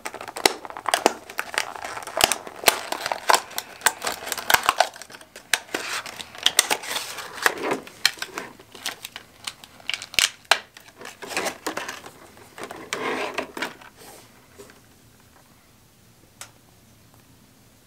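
Clear plastic clamshell packaging of a soft frog lure being crinkled, bent and torn open by hand: a dense run of irregular plastic crackles and snaps that stops about fourteen seconds in.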